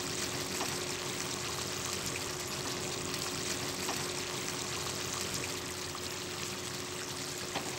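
Thick tomato-onion egg curry gravy boiling in a pan, a steady bubbling, with a few faint clicks of a steel spoon as the eggs are turned over in it.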